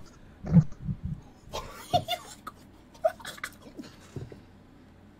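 A man laughing in short bursts during the first few seconds, fading to quiet near the end.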